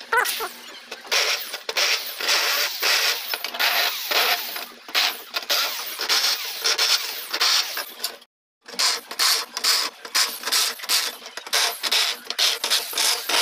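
Corded electric drill with a countersink bit cutting into screw holes in aluminium window profile, the motor and cutting noise surging and easing in short repeated runs, one hole after another, with a brief break a little past halfway.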